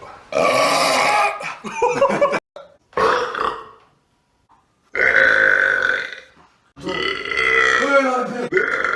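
Men burping: four long, loud burps one after another, each lasting a second or two, with short breaks between them.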